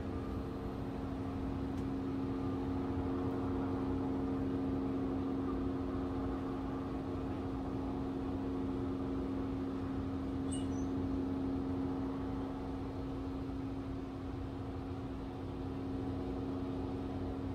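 Low, steady rumble of a distant SpaceX Falcon 9 rocket climbing after launch, under a constant mechanical hum. A brief high chirp about ten seconds in.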